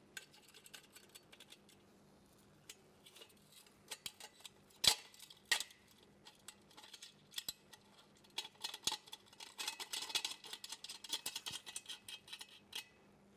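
Light metallic clicks and clinks of metal cart frame struts and small screws being fitted together by hand, with a sharp knock about five seconds in and a quick run of small ticks in the second half.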